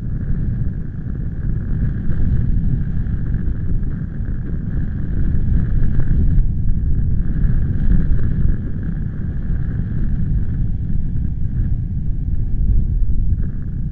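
Wind blowing across the microphone, a loud low noise that surges and eases in gusts.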